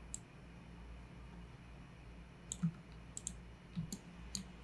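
Scattered sharp clicks from computer controls being worked, about six in all, two close together about three seconds in, over a faint steady low hum.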